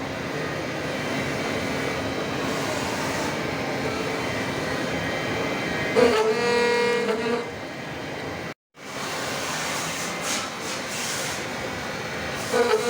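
High-feed face mill with six carbide inserts cutting S355 steel at maximum feed: a steady harsh cutting noise, with a loud pitched ring about six seconds in and again near the end. The sound cuts out for an instant just past halfway.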